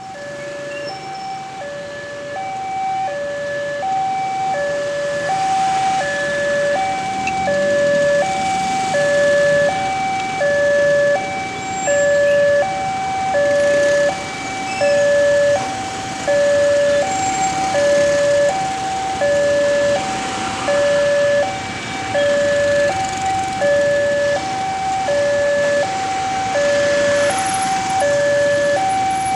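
Railroad level-crossing warning alarm sounding a steady two-tone electronic chime, high and low notes alternating about once every three quarters of a second. It warns that the barrier is closing for an approaching train. Motorcycle and car traffic runs underneath.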